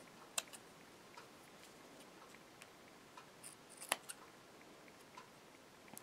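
Scissors snipping the edges of a vinyl strap: a few faint, sharp snips, the loudest about four seconds in.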